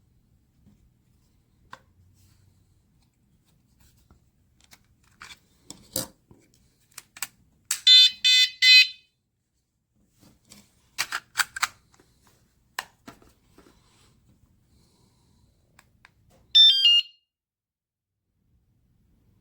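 Electronic beeps from a WSDCAM vibration anti-theft alarm: a quick string of short high beeps about eight seconds in, and a fast run of beeps stepping down in pitch near the end. Scattered sharp clicks and knocks come in between.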